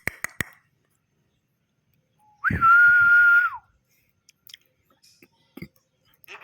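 A single steady whistle on one held pitch, lasting about a second, starting a little past two seconds in. A few quick clicks come at the very start.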